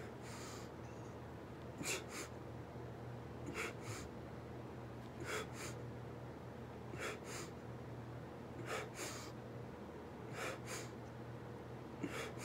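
A man breathing hard and sharply in time with push-up reps: a pair of quick breaths about every one and a half to two seconds. A low steady hum runs underneath.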